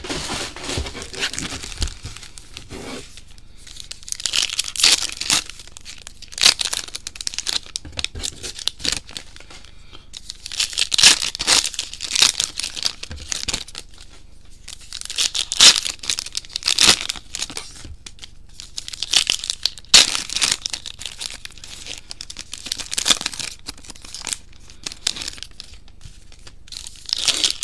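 Trading card blaster boxes and their packs being torn open by hand: repeated spells of tearing and crinkling wrapper, a few seconds apart.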